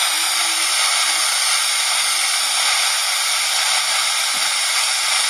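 Jio Phone's FM radio hissing with steady static through its small speaker: it is tuned to no station, as no nearby frequency was found.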